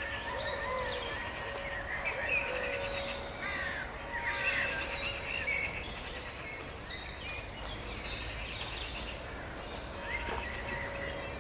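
Several wild birds singing and chirping together in a morning chorus, busiest in the first half.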